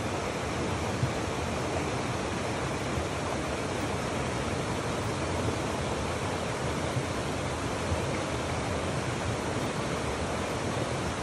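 Steady rush of flowing stream water, an even hiss without breaks.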